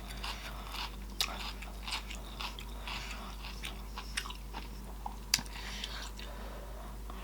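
Close-miked wet chewing and lip smacking of someone eating saucy food, with irregular clicks several times a second and one sharper smack about five seconds in.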